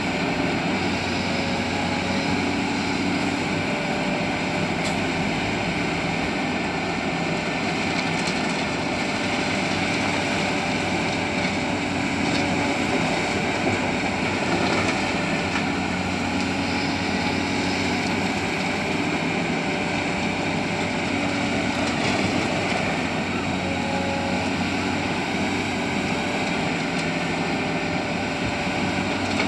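Heavy diesel engine of a Caterpillar 320D excavator running steadily under work, with a constant drone and slight shifts in pitch.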